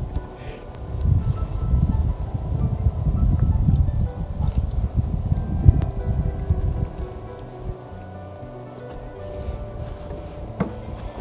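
Steady high-pitched chorus of insects, a continuous pulsing buzz. A low rumble sits under it for roughly the first seven seconds, then fades.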